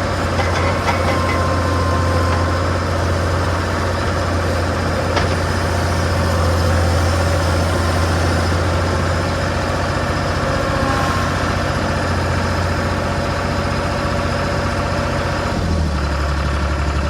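Skid steer's diesel engine running steadily with a low hum, dropping to a lower speed near the end.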